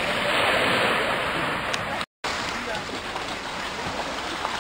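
Small lake waves lapping and splashing onto a pebble shore under a steady rush of wind. The sound breaks off abruptly about two seconds in, and a similar steady outdoor rush follows.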